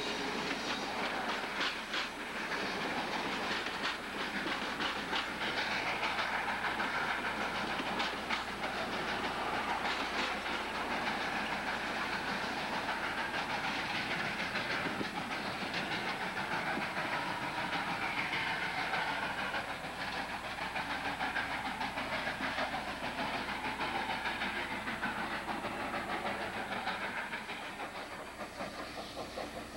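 Passenger train hauled by Southern Pacific 786, a 2-8-2 Mikado steam locomotive, heard from aboard the coaches: a steady hiss and rumble of wheels on the rails, with scattered clicks.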